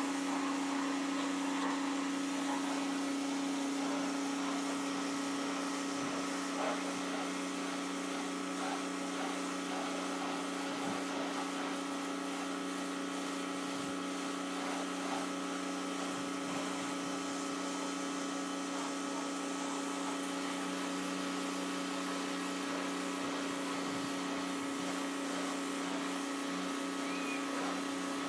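Clean Force 1400 PSI electric pressure washer running steadily: a constant motor-and-pump hum over the hiss of the water jet.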